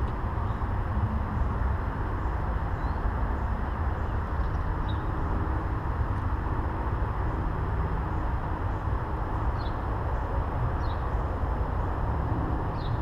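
Steady low outdoor rumble with no clear source, with a few faint, short, high bird chirps now and then.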